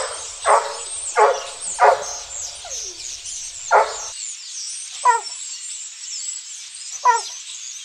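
Recorded puppy sound effect: about eight high yips and barks, several in quick succession at first and then spaced a second or more apart, the last ones short falling whines.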